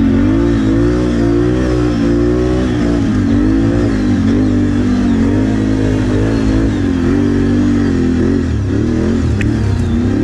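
ATV engine running hard, its pitch rising and falling as the throttle is worked.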